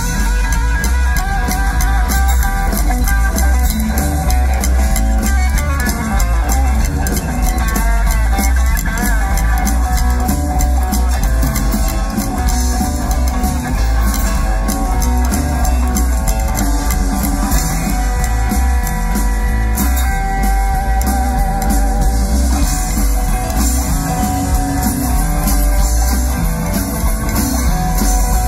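Live rockabilly band playing: electric guitar, upright double bass and drums, with strong, steady bass, recorded from the crowd.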